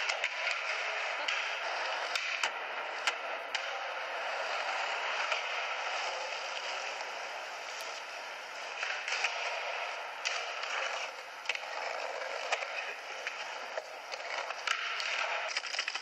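Skateboard wheels rolling on concrete, with scattered sharp clicks and knocks of the board, heard thin and without bass through a camcorder's small playback speaker.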